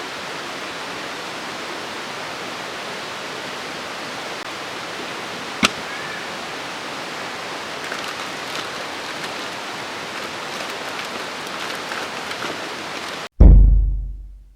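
A steady rushing noise with one sharp click about halfway through and a few small crackles after it. Near the end the noise cuts off abruptly into a loud, deep boom that fades away.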